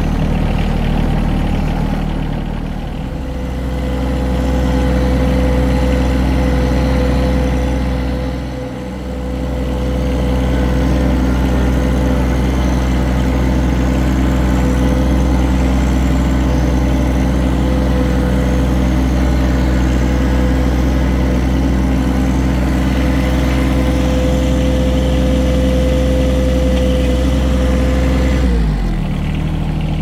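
Compact tractor engine running steadily under way, with a steady high whine over the engine note. It eases briefly about nine seconds in, and near the end the revs drop and the whine stops.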